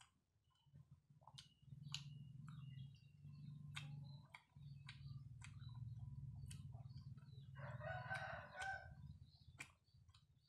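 A rooster crows once, a call of a little over a second near the end, over a low steady hum and scattered sharp clicks.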